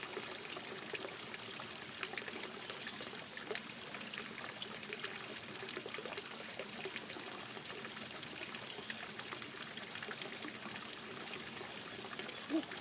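Shallow stream water trickling and flowing steadily, with small scattered ticks and splashes.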